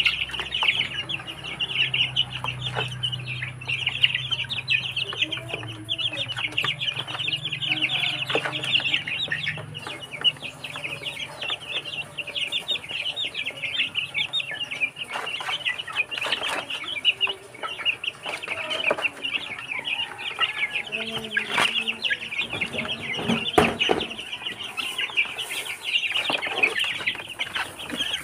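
A flock of young Barred Plymouth Rock chickens peeping constantly and clucking as they peck at feed, with a few sharp knocks.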